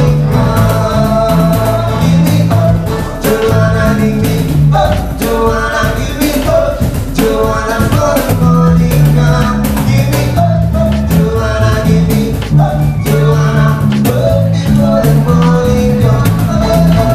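A live band playing a song: a singer over guitar, bass and drums, with a steady beat.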